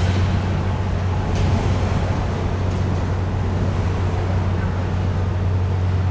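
A steady low mechanical hum under a constant rushing noise, with no change in pitch or level.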